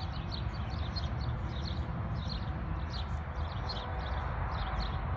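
A dense chorus of small animals chirping: short high calls overlapping several times a second, heard over a steady low rumble.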